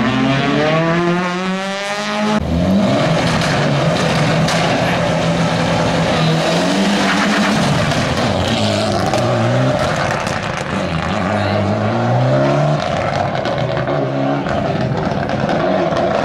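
Rally car engines revving hard on a tight course, the pitch climbing and dropping again and again as the cars accelerate, shift and brake for the corners, over steady tyre and engine noise. The sound changes abruptly about two seconds in.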